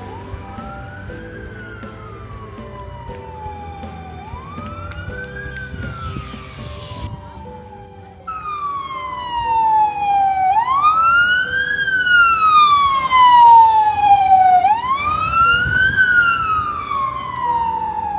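Emergency vehicle siren wailing: each cycle rises quickly and falls slowly, about four seconds per cycle. It becomes much louder about eight seconds in. Faint background music with short repeated notes plays underneath.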